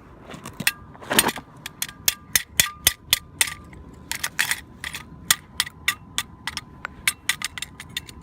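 A hammer striking a metal stapler over and over, about three sharp blows a second, with a faint metallic ring hanging between the blows.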